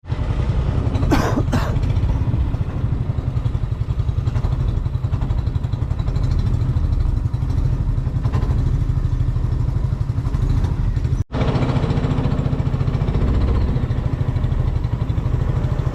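A motor engine running steadily with a fast low throb, with two short sharp sounds about a second in and a brief dropout about eleven seconds in.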